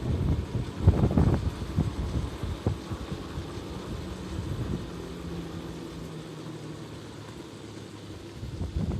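A vehicle driving, its engine running at a steady note through the middle, with gusts of wind rumbling on the microphone about a second in and again at the end.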